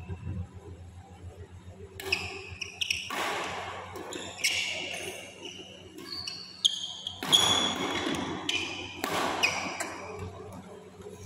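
A badminton rally: several sharp racket strikes on the shuttlecock, mixed with short high-pitched squeaks of court shoes on the court mat.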